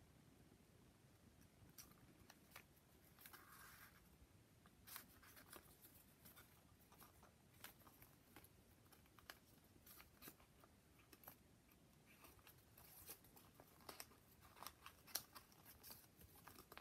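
Faint crisp ticks and brief rustles of folded paper units being handled and slotted together into a modular origami polyhedron, coming at irregular intervals and thickest near the end.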